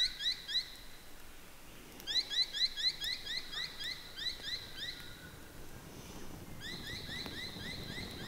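A bird calling: runs of quick rising chirps, about five a second, in three bouts, the longest near the middle lasting about three seconds.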